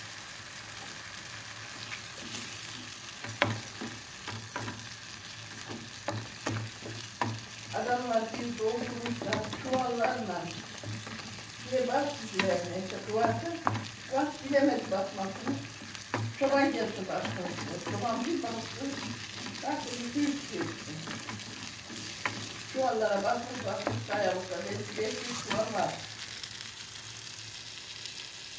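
Mıhlama (cornmeal, butter and melted cheese) sizzling in a hot metal pot while it is stirred with a wooden spoon, the spoon scraping and knocking against the pot. Several runs of wavering, squeaky scraping come between about 8 and 26 seconds in.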